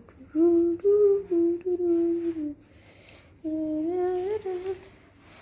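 A child humming a simple tune in two phrases of long held notes, with a short pause between them.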